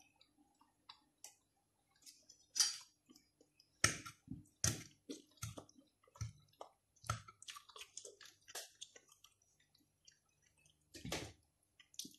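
Quiet, scattered eating sounds: chewing, with a metal fork clicking and scraping on a ceramic plate as chopped tomatoes are picked up.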